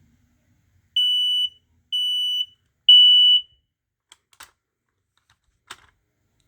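Smoke alarm, model 1276, sounding on test: three loud beeps at one high, steady pitch, each about half a second long with short gaps, in the standard temporal-three alarm pattern. A few faint clicks follow.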